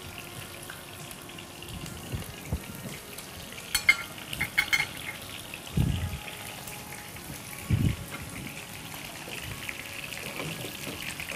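Chicken pieces coated in shredded asmaliyeh (kataifi-style) pastry frying in oil in a pan on medium heat, with a steady sizzle. Metal tongs clink against the pan about four seconds in, the loudest sounds, and two dull thumps follow near six and eight seconds in.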